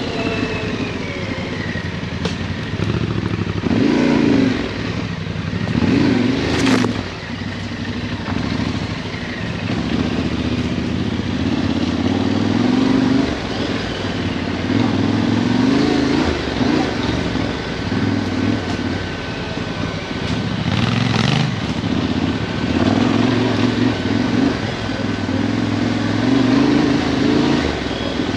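Yamaha Ténéré 700 parallel-twin engine pulling at low speed off-road, the throttle opened and eased off again and again in short surges. Two sharp knocks about a third of the way in and again later.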